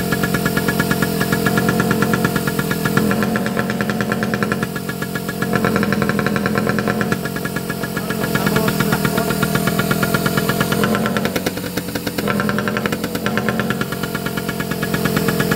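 An engine running with a rapid, even exhaust beat, its exhaust fitted with a flap valve that opens and shuts to switch it between loud and quieter. The loudness drops and comes back a few times.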